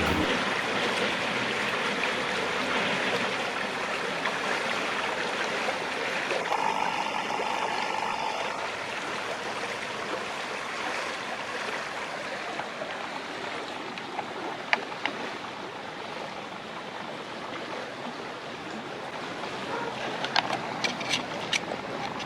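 Steady rush of flowing stream water that slowly fades. A few sharp clicks come near the end.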